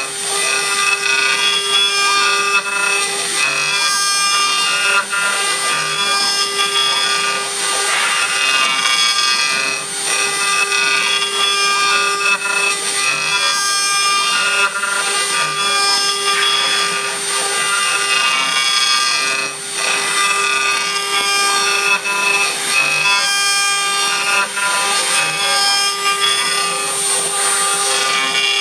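Mini CNC router spindle running with a steady whine as its engraving bit cuts into a rod of red material turning on the rotary axis, carving it into beads. The cutting noise wavers as the bit moves, with a few brief dips.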